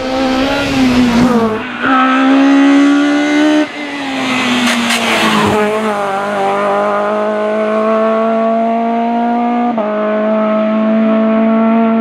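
Race car engine at full throttle accelerating up a hillclimb course. Its note climbs and then breaks at each of several gearchanges, and it falls in pitch as the car passes and pulls away.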